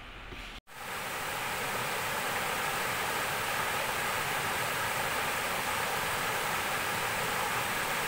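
Shallow stream rushing over low rock ledges: an even, steady rush of water. It cuts in suddenly after a brief drop-out about half a second in and swells to full level within a second.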